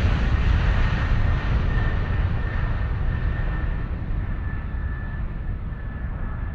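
Jet airliner engine noise: a steady deep rush with a faint high whine, slowly fading and growing duller.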